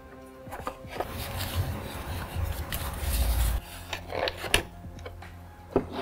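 Hands handling a 3D-printed plastic puzzle box: a couple of seconds of rubbing and scraping of plastic against hands and table, then several light clicks and taps.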